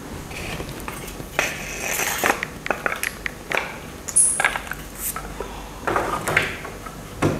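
Handling noise of a keris: an irregular run of clicks and light metallic clinks with short scrapes and swishes as the blade and its fittings are handled.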